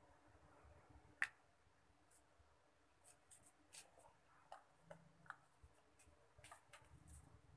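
Near silence with faint clicks and light taps of small electronic parts being handled on a tabletop: one sharper click about a second in, then a scatter of light ticks over the next few seconds.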